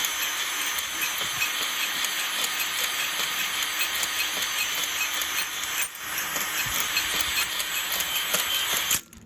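A power drill spinning a cylinder hone in the bore of a Lister CS engine's cylinder, a steady abrasive whirr that dips briefly about six seconds in and stops suddenly near the end. This is the honing that takes out the ring ridge and glazing before new piston rings go on.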